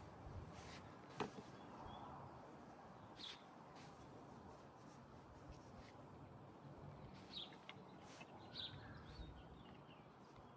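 Near silence: faint outdoor ambience with a few short, distant bird chirps and a single sharp click about a second in.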